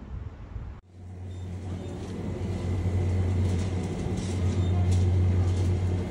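Wire shopping cart being pushed over a tiled store floor: a steady low rumble from the wheels with light rattling of the basket, growing louder over the first few seconds.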